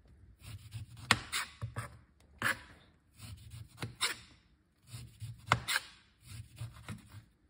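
Kitchen knife cutting the peel off an orange on a plastic cutting board: a series of short slicing scrapes through the rind about every second or so, several ending in a sharp tap of the blade on the board.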